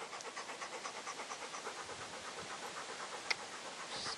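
A Weimaraner panting rapidly and rhythmically with its mouth open, close to the microphone.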